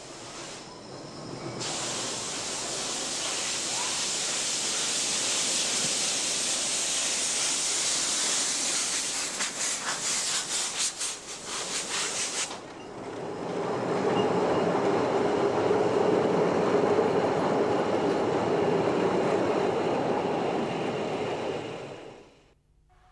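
Narrow-gauge steam locomotive working past with a loud hiss of steam; a little past the middle a quick run of even exhaust beats comes through, then the sound changes suddenly to a lower, steady rumble of the train rolling by, which fades out near the end.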